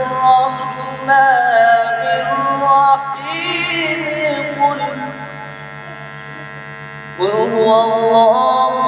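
A man reciting the Quran in melodic qirat style into a microphone, drawing out long ornamented notes. His voice drops away for about two seconds past the middle, then comes back with a new phrase near the end. A steady electrical hum runs under it.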